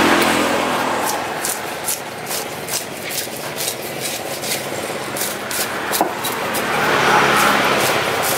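A motor vehicle engine running close by, loud at the start, easing off, then swelling again near the end as another vehicle comes by. Short sharp ticks and scrapes of a knife cutting into a large trevally on a wooden block run throughout.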